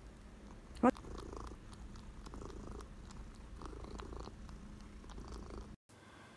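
Orange tabby cat purring steadily, close to the microphone. About a second in there is a brief, sharp rising chirp, and the sound cuts off near the end.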